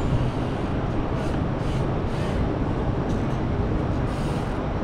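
Steady rumbling wind and road noise from riding a bicycle, buffeting the microphone, with city street sound behind it.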